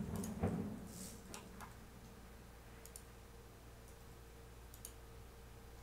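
Sparse computer keyboard and mouse clicks: a handful of light, scattered clicks spread over several seconds, after a louder low thump right at the start. A faint steady hum runs underneath.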